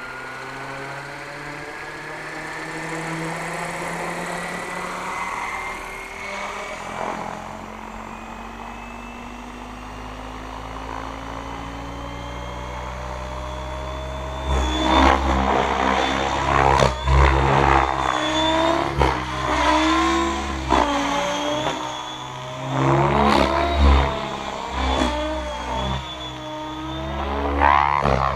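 Mikado Logo 690 SX electric RC helicopter, with a Scorpion motor and 693 mm Edge main blades. For about 14 seconds it gives a rising whine as the rotor head spools up toward 2050 rpm. It then lifts off, and its rotor and motor noise turns louder and uneven, swelling and fading with heavy low rumble as it flies.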